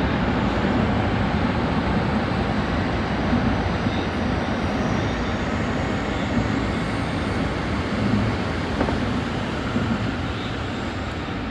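Tsukuba Express electric train running through an underground tunnel, heard from inside the front car: a steady rumble of wheels on rail echoing off the tunnel walls. It grows slightly quieter near the end as the train pulls into an underground station.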